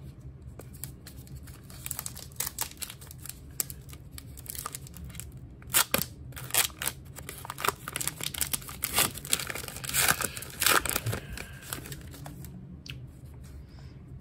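Crinkling and rustling of a baseball card pack's wrapper being torn open and the cards handled, in an irregular run of sharp crackles, loudest about six and ten seconds in.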